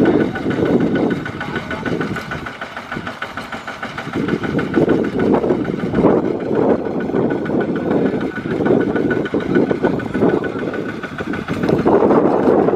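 Single-cylinder diesel engine of a two-wheel walking tractor running hard under load with a fast, even chugging beat, pulling a trailer of rice sacks. It eases off briefly, then runs louder again from about four seconds in.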